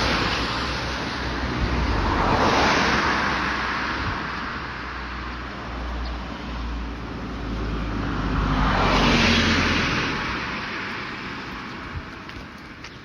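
Road vehicles passing by, each a wash of tyre and engine noise that swells and fades. One is fading at the start, and two more pass about two and a half and nine seconds in.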